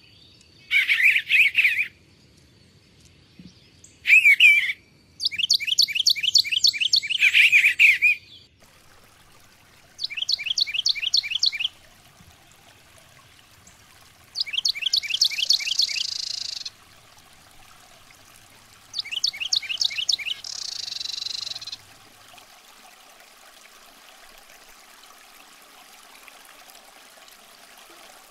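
Songbirds singing in separate phrases a few seconds apart, several of them rapid series of quick downward-sweeping notes. A faint steady sound of running water comes in underneath at about eight seconds.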